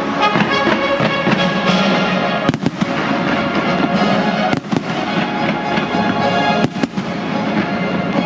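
Fireworks going off over loud music: three pairs of sharp bangs, about two seconds apart, cut through steady music.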